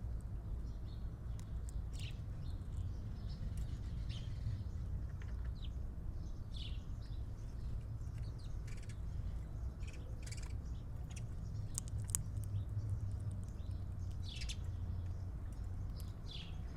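Small birds chirping: many short, high chirps scattered irregularly, some in quick runs, over a steady low rumble.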